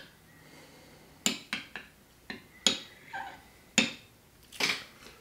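Small metal tasting spoons clinking against little ceramic espresso cups, several sharp taps spread across a few seconds, with a short slurp of espresso off a spoon near the end.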